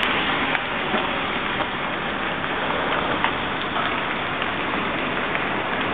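Steady rain falling during a hailstorm: a dense, even hiss with a few scattered sharp ticks.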